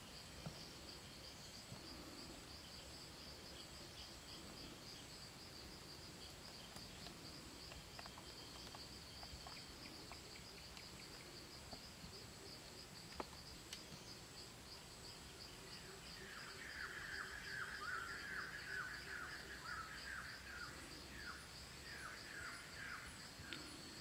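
Quiet outdoor ambience: insects trilling steadily in a high, rapid pulse, and about two-thirds of the way through a run of faint bird chirps that lasts several seconds.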